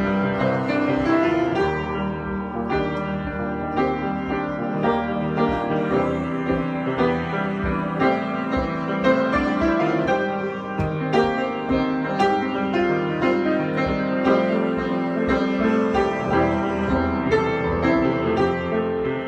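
Piano playing an instrumental passage of a slow song, with sustained chords and a melody line and no singing.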